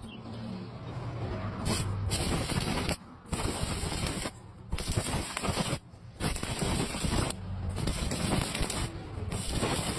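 Electric arc welding crackling and hissing in about six bursts of a second or so each, with short breaks between them.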